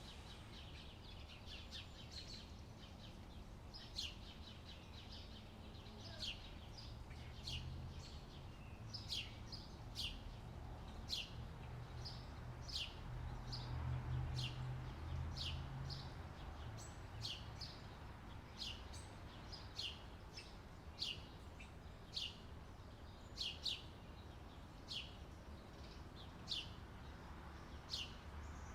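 Birdsong: short, high chirps, each sliding down in pitch, repeated about once a second, over a low steady rumble.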